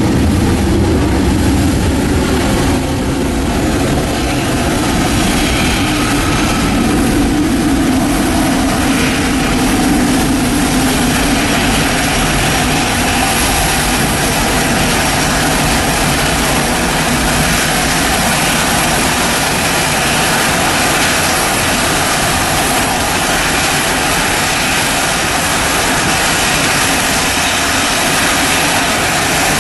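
Jet airliner engines at takeoff power: a loud, steady rushing noise with a low hum in the first several seconds, and a stronger hiss in the upper range from about twelve seconds in.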